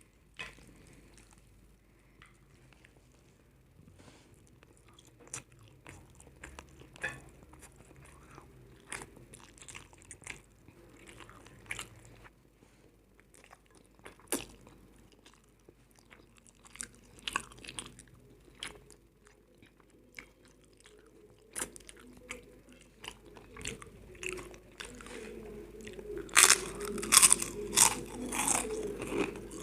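Close-up eating sounds: biting and chewing crunchy food, with scattered sharp crunches that grow into a run of loud crunching near the end.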